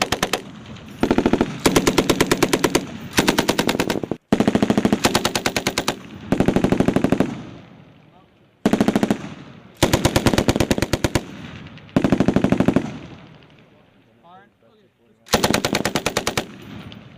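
Belt-fed machine gun firing about ten short bursts of rapid automatic fire, each roughly a second long, with brief pauses between them and one longer pause about two thirds of the way through.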